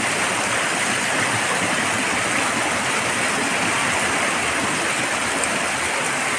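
Heavy monsoon rain pouring onto a flooded street, with the floodwater rushing: a steady, unbroken roar of water.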